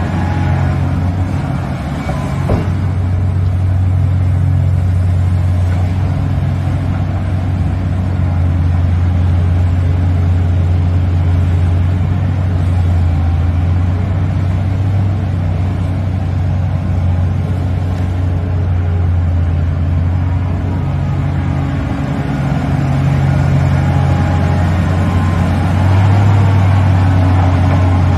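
Heavy diesel engine of a large excavator running with a steady low drone. It swells and eases as the machine works, and is loudest near the end.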